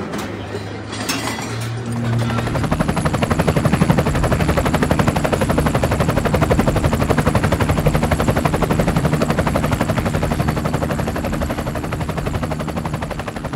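Helicopter rotor chopping in a fast, even beat over a low engine hum, starting about two seconds in.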